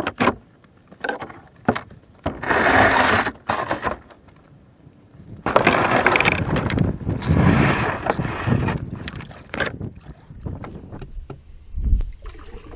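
A canoe being handled and set moving on the water: several sharp knocks on the hull, then long bursts of rushing noise and a few low thumps near the end.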